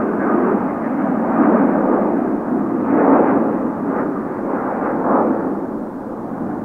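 Jet airliner's engines heard from the ground as it passes, a loud, rough rumble that swells twice and eases off near the end.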